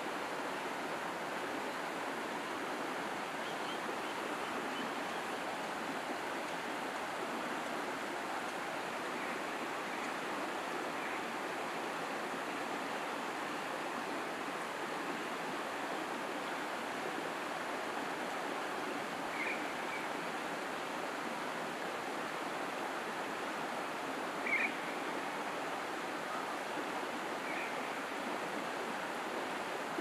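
Steady rushing of a creek's running water carried up from the valley below. A few short high chirps stand out, the loudest about two-thirds of the way through.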